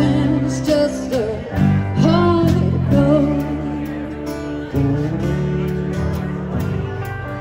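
Live band playing: a woman singing over acoustic guitar, electric bass, drums and electric guitar.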